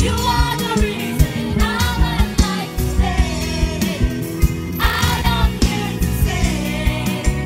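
Live gospel praise music: a woman sings lead into a microphone over a band with a drum kit keeping a steady beat.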